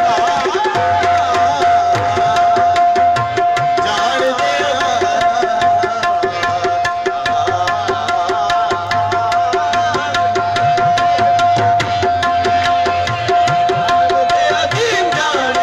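Qawwali instrumental passage: a harmonium holding one steady note over a fast, even tabla beat.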